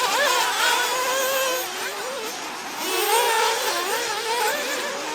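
Several 1/8-scale nitro buggy engines running at high pitch, their buzz rising and falling as the cars are revved and backed off around the track.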